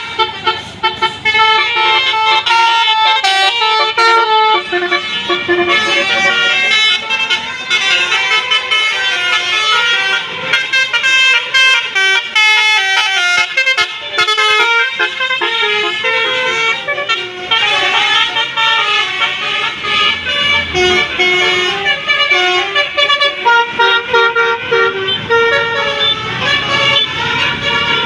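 Telolet multi-tone musical horn on a Basuri bus playing a fast melody, its notes stepping from one pitch to the next several times a second without a break.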